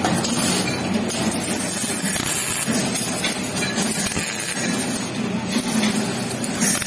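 MIG welding arc, a steady dense crackle and hiss over the low hum of the welding machine, running without a break.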